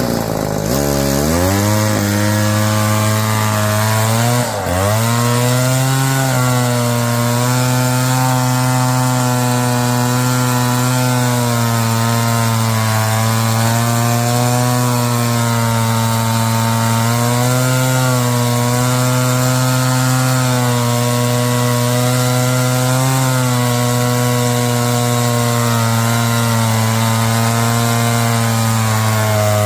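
Two-stroke engine of a chainsaw winch running at high revs under load, freshly repaired with a new carburetor diaphragm and adjusted high-low mixture screw. It revs up at the start, bogs down sharply for a moment about four seconds in, then holds a fairly steady pitch that rises and falls slightly.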